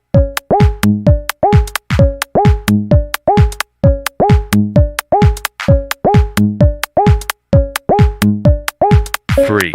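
Techno track built on a drum machine: a steady, dry pattern of kick and pitched percussion hits, each sliding down in pitch, repeating evenly. A noisy sweep comes in near the end.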